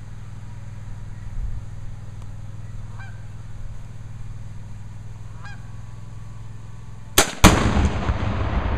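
A rifle shot cracks, and a quarter second later a tannerite charge packed into a beaver lodge goes off in a louder blast, followed by a long rumble that is still going at the end. Before it, three faint bird calls sound a couple of seconds apart.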